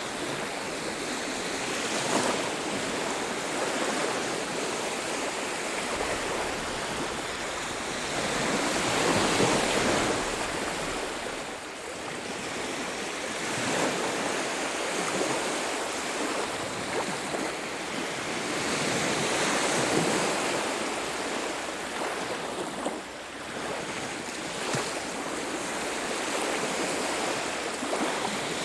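Ocean surf on a beach: waves breaking and washing up the shore, swelling and easing every several seconds.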